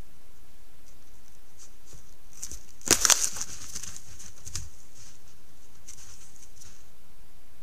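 A wolf moving through snow and brush: a short cluster of sharp crackles and snaps about three seconds in, then a dull thump, over a steady high hiss.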